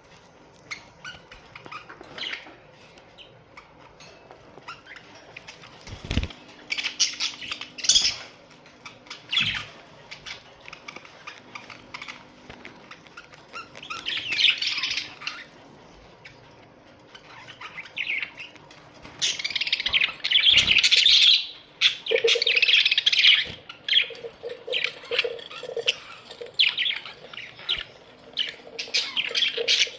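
A colony of budgerigars chattering and warbling in short overlapping bursts, busier and louder over the second half, with a couple of brief low knocks.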